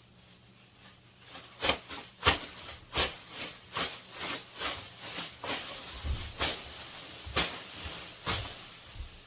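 Thin plastic painter's sheet crinkling and rustling as it is unfolded, in a run of about a dozen short strokes starting a second and a half in, the sticky layers pulling apart.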